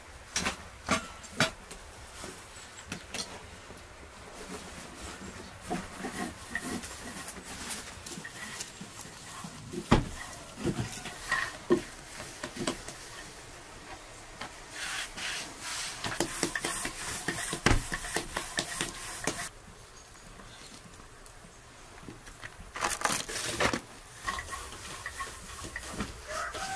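Lavash dough being worked by hand: wooden rolling pins knocking and rolling on a floured wooden board, and thin dough sheets being flapped and patted, in irregular taps and knocks. A few knocks stand out louder, about ten seconds in and again near eighteen seconds.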